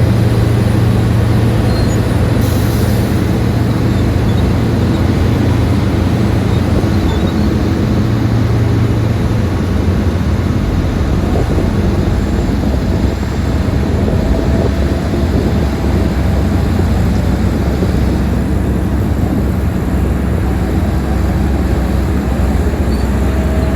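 Heavy earth-moving machinery's diesel engine running steadily, a deep hum whose pitch shifts lower about ten seconds in.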